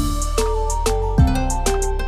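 Background music: a beat with a deep kick drum about every 0.8 s, ticking hi-hats and a plucked melodic line.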